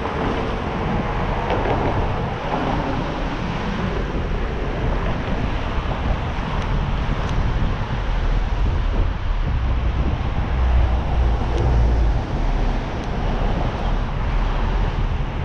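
Wind buffeting the microphone of a camera carried on a moving bicycle, a steady low rumble that swells about eight seconds in and eases after twelve, over the hiss and hum of passing street traffic.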